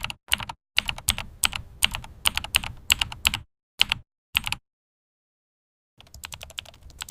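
An uneven run of sharp clicks, several a second, that stops about four and a half seconds in and starts again, faster and denser, near the end.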